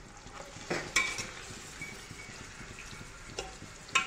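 Raw mutton pieces frying in hot oil and onion in a pressure cooker, a steady sizzle, while a metal spoon stirs them and clinks against the pot a few times, once about a second in and twice near the end.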